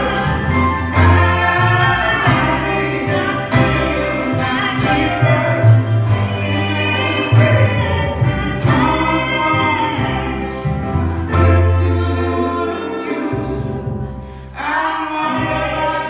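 A small band playing a song live: singing over upright double bass, guitar and piano. About thirteen seconds in the bass drops out and the music thins briefly before the full band comes back in.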